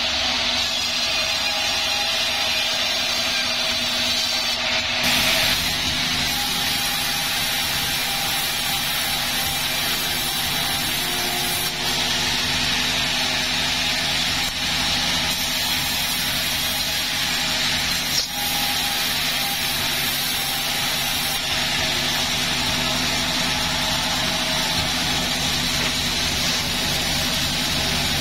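Sawmill saw running steadily, cutting timber, with its motor's steady hum; the sound gets fuller about five seconds in.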